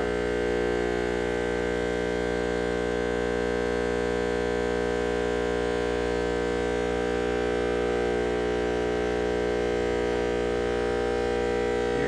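Electric ground fogger running, a loud, steady drone with many overtones.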